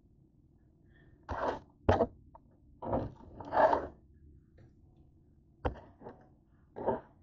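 Hands gathering up cabbage scraps on a cutting board: a handful of short rustling scrapes and light knocks, with pauses between them.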